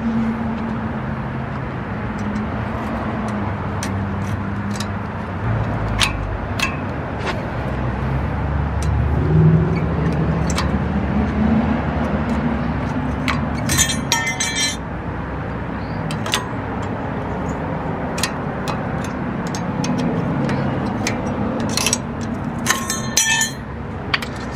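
Light metallic clinks and scraping as a screwdriver pries the old pad clips off a brake caliper bracket. Twice there is a longer spell of rapid rattling clinks, about halfway through and near the end.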